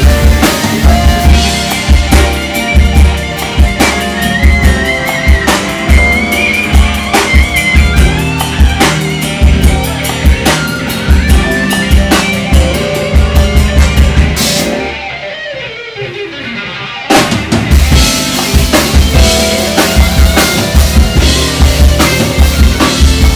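Live band playing with drum kit and guitar: a steady beat of bass drum, snare and rimshots under the full band. About fourteen seconds in, the drums and cymbals drop out for a couple of seconds while a note slides down, then the whole band comes back in.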